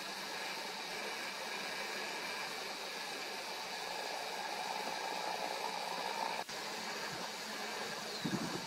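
Steady outdoor background noise, an even hiss with a faint low hum. A brief dropout comes past the middle and a short low thump near the end.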